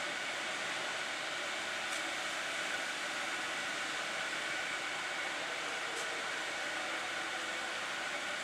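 A steady hiss with a faint high hum, unchanging throughout.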